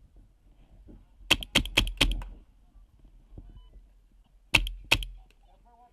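Paintball marker shots fired close by, sharp cracks: a quick string of four about a second in, then two more about four and a half seconds in.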